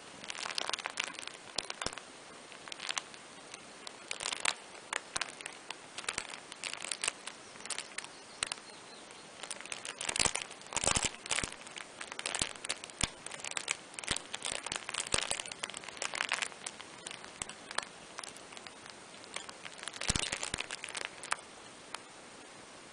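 Irregular crinkling and rustling of a fabric playmat as a kitten and an adult cat shift and wrestle on it, in uneven bursts of crackly clicks, the loudest about ten seconds in and again near the end.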